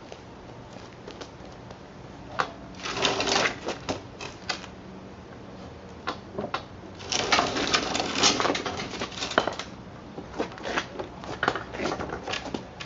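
Wooden pallet boards knocking and clattering as they are handled, in two spells of rapid clicks and knocks, the first about three seconds in and the second from about seven to nine and a half seconds, with scattered single knocks after.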